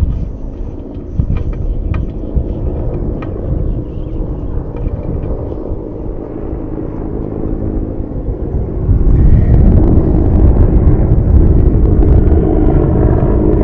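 Steady low rumble outdoors, with a few sharp clicks in the first few seconds; the rumble grows louder about nine seconds in.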